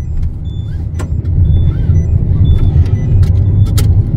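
Car cabin road noise: a steady low rumble of engine and tyres on a wet road, growing louder about a second and a half in, with a few scattered clicks.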